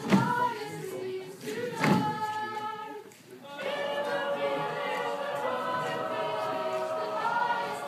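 A group of pupils singing together a cappella, with two heavy thumps in the first two seconds, a brief drop in sound about three seconds in, then the voices holding sustained chords.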